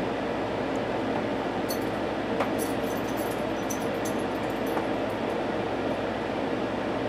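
Steady rushing background noise, with a cluster of faint small clicks and ticks from about two to four and a half seconds in as a liquid lipstick's wand applicator is worked over the lips.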